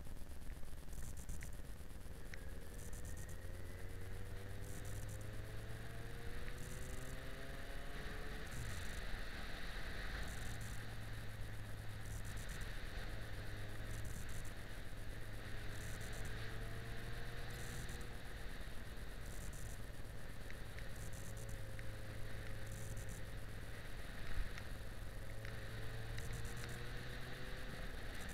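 Yamaha XJ6 Diversion's 600 cc inline-four engine running on the move, its pitch rising several times as it accelerates, over wind and road noise on the bike-mounted camera.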